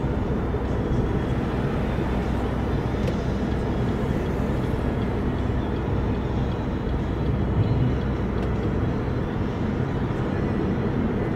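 Steady low rumble of a car on the move: tyre and engine noise from driving on the road.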